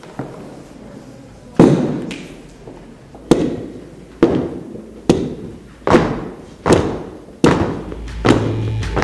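Dancers' hard-soled shoes stamping together on a wooden floor: a series of about eight heavy thuds, first spaced apart and then roughly one a second, each ringing on in the large room. Music with steady tones starts near the end.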